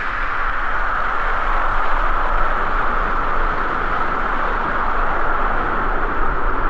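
Steady rushing noise of water and air streaming past a body-mounted camera riding down a waterslide.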